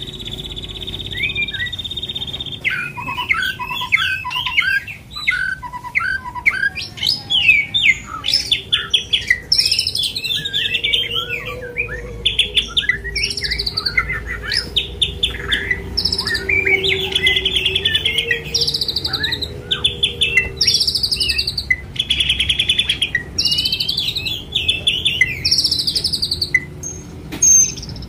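White-rumped shama (murai batu) singing a long, varied song of fast trills, whistled phrases and repeated notes, opening with a held high whistle of about two seconds. A faint low hum runs underneath through the middle.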